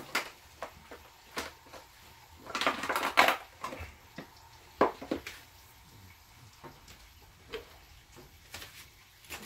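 Plastic food containers and lids being handled on a table, with clicks and clatter. A denser rattle comes about two and a half to three and a half seconds in, and a sharp knock follows near five seconds.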